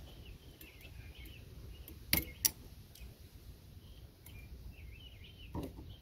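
Two sharp metallic clicks about half a second apart from locking pliers clamped on a seized, corroded RV storage-bin cam lock, with faint bird chirps in the background.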